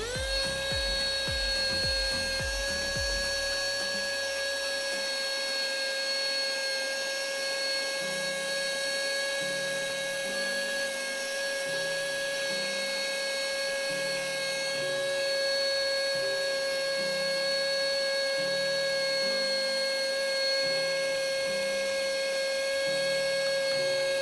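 Small electric motor spinning up and then running with a steady high-pitched whine.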